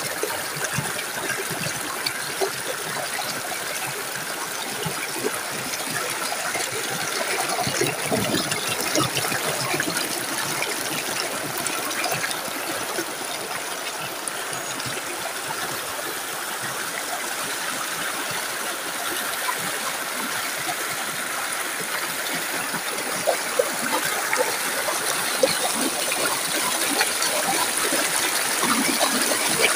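Stream water rushing and splashing over rocks in small cascades: a steady rush with small splashes, swelling slightly now and then.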